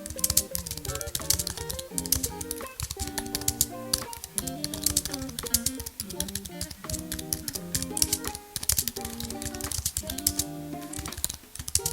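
Fast typing on the Apple Magic Keyboard from the 24-inch M1 iMac: a rapid, uneven stream of light key clicks from its low-travel scissor switches. Background music plays underneath.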